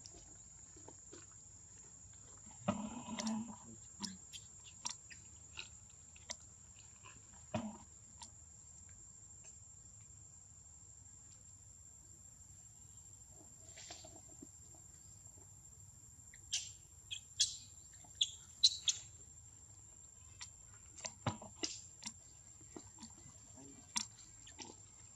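Short, high squeaking cries of a baby macaque, a cluster of several in quick succession about two-thirds of the way through, over a steady high-pitched whine. Scattered soft clicks and rustles in dry leaf litter come and go around them.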